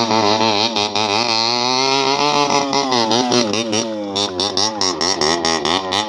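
Motorcycle engine running hard, its revs rising and falling over and over.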